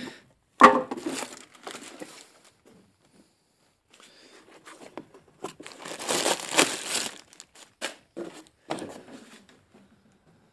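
Rummaging among containers: a sharp knock, then plastic crinkling for a few seconds with a louder stretch in the middle, and a few short knocks near the end.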